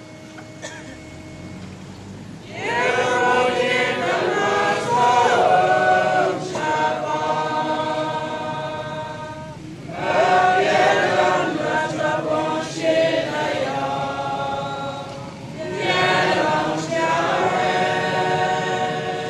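A congregation singing a hymn together in phrases with long held notes. The singing starts about two seconds in, and new phrases begin near the middle and again near the end.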